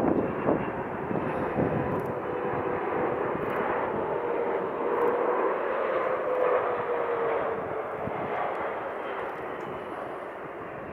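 Jet engine noise from a Boeing 777-300ER's two GE90 turbofans as the airliner passes low on landing: a steady rush with a whining tone that dips slightly in pitch past the middle, fading toward the end.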